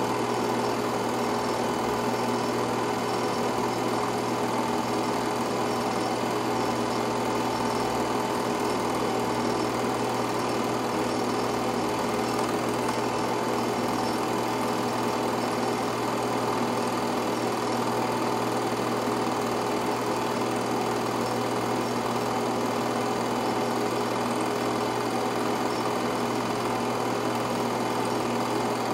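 Film projector running steadily: a constant mechanical whir and rattle from the motor and the film advancing through the gate, unchanged throughout.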